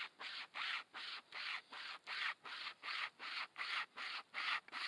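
Survival wire saw pulled back and forth through a tree trunk, one scratchy rasp per stroke at a steady pace of about three strokes a second.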